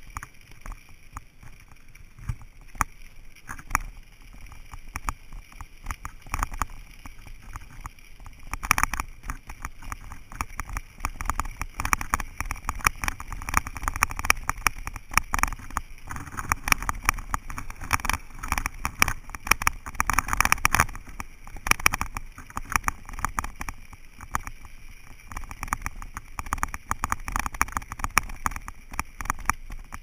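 Bicycle riding along a gravel trail strewn with dry leaves: a dense, irregular crackle of tyres on gravel and leaves, with rattling and wind noise on the camera. It gets busier and louder through the middle stretch.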